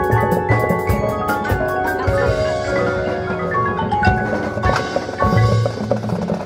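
High school marching band music, led by the front ensemble's mallet percussion (marimba and glockenspiel) playing quick stepwise runs of notes over low held tones and percussion hits.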